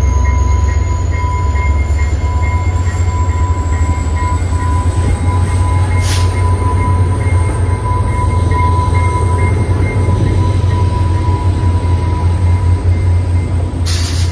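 VIA Rail EMD F40PH-2 diesel locomotive passing slowly at close range at the head of a passenger train: a heavy steady engine rumble with a steady high-pitched squeal over it. Two short sharp knocks, about six seconds in and near the end.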